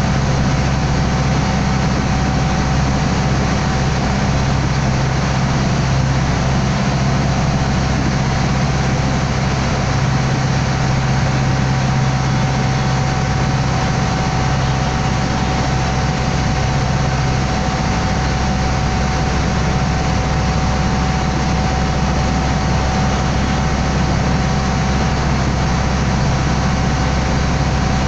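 Water taxi's engine running steadily under way: a loud, even drone with a thin steady whine above it. The deepest part of the hum eases a little about two-thirds of the way through.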